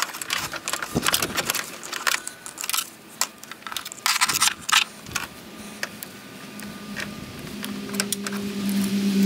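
Clicks and rattles of a snow-plow controller's wiring harness, corrugated plastic loom and metal ring-terminal leads, being handled over a truck's battery terminals. A low steady hum comes up near the end.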